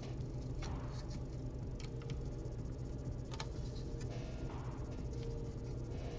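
Plastic Lego pieces being handled and fitted: a few sharp, scattered clicks and small rattles of bricks and plates over a steady low hum.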